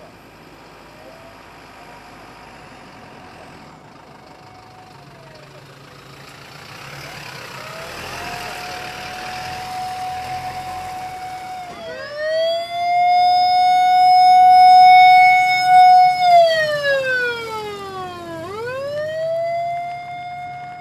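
Emergency vehicle siren wailing as the vehicle drives past. It is faint at first, then the noise of a passing vehicle swells and the siren turns loud: it rises, holds a long high note for several seconds, slides down and rises again.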